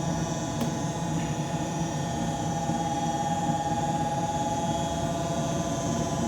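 York Affinity 9C series gas furnace running with its panel open: a steady motor hum with a steady whine over it, and one faint click about half a second in.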